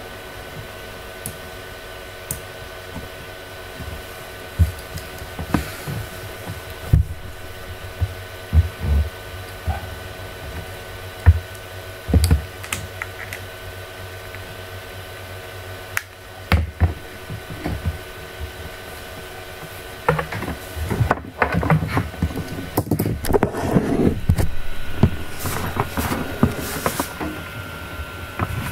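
Scattered clicks and low thumps from handling a computer desk setup, over a steady electrical hum with several faint whining tones. The clicks and thumps come thick and fast over the last several seconds.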